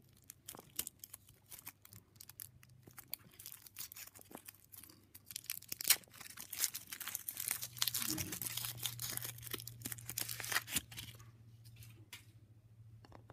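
Foil wrapper of a Kinder Surprise egg being peeled off and crinkled by hand. The crackling is scattered at first, turns dense from about halfway, and thins out near the end.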